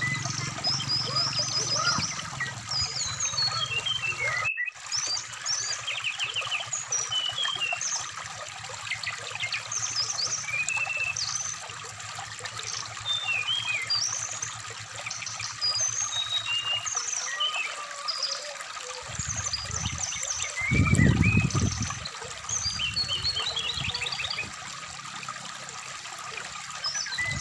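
A brown-chested jungle flycatcher (SRDC) singing many short whistled phrases and quick trills over the steady rush of a shallow stream. A low rumble about twenty seconds in is the loudest moment.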